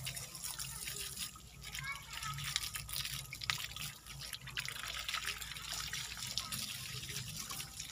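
Water from a hose spraying onto a bonsai's bare root ball and splashing down onto a rock and into a bucket, washing the soil out of the roots.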